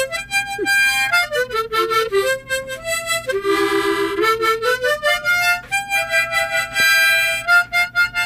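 A large double-row, 20-hole metal harmonica played by mouth, picking out a simple nursery-rhyme melody in short single notes, with a longer pulsing chord about halfway through.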